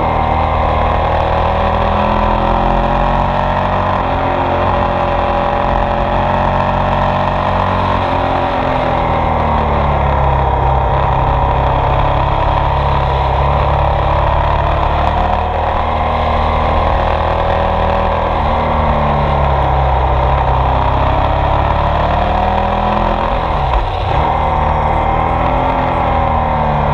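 Ducati Multistrada 1200 S DVT's 1198 cc Testastretta V-twin engine running under way, its pitch rising and falling again and again as the bike accelerates and slows, over a steady rush of noise.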